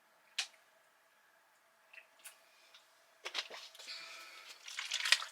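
A person tasting a drink mixed from powder in a bottle: a sharp click about half a second in and a couple of faint ticks, then about two seconds of sipping and swallowing near the end.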